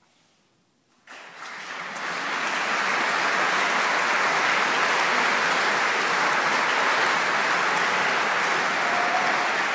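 Audience applause. It breaks out about a second in, after a brief near silence, and quickly swells to steady, dense clapping.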